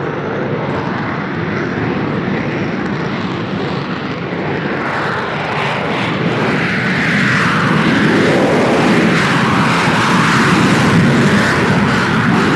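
Jet aircraft engine noise: a loud, steady rush that starts abruptly, with a slowly shifting tone and growing a little louder from about six seconds in.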